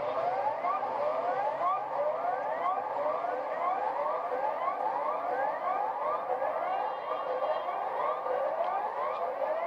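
Electronic alarm tone made of rising whoops, about three a second and overlapping one another, repeating evenly without a break.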